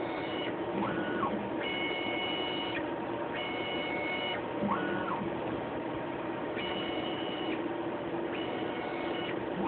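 Hudson Solo pipetting robot's motors whining as its 12-channel head moves: short steady high tones about a second long, repeating every second or two, and a few whines that rise, hold and fall, over a steady machine hum.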